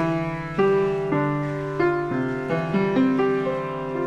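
Background music: a slow piano melody, single notes struck about every half second and left to ring out.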